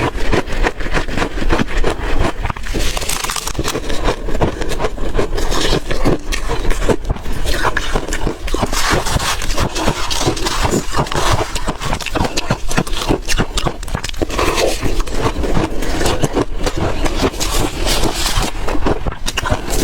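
Refrozen ice being bitten and chewed close to the microphone: loud, dense, irregular crunching and cracking.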